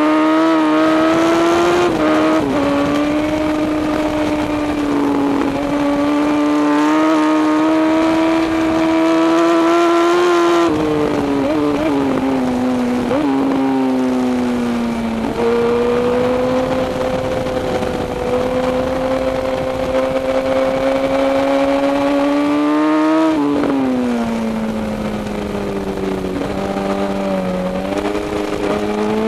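Racing motorcycle engine at high revs heard from an onboard camera, with wind rush. The pitch climbs slowly under throttle, jumps up and down through a run of quick gear changes about 11 to 15 seconds in, and falls away as the rider rolls off about 23 seconds in before rising again.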